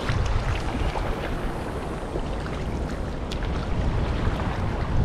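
Wind rumbling on an action camera's microphone over the steady wash of the ocean.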